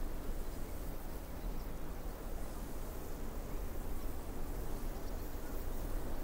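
Steady wash of ocean waves breaking on a beach, an even, unbroken noise with no distinct crashes standing out.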